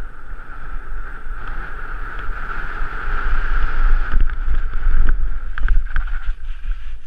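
Wind buffeting the camera's microphone and tyres rolling over rough tarmac as a mountain bike coasts downhill, with a steady high hiss strongest in the middle and several sharp knocks in the second half as the bike goes over bumps.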